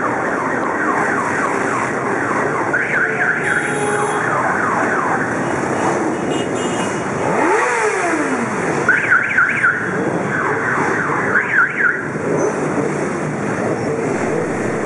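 Many motorcycle engines running and revving together in a dense mass, their pitches rising and falling; one engine revs up and back down about halfway through. Short bursts of a high warbling tone, like an alarm or siren, cut through three times.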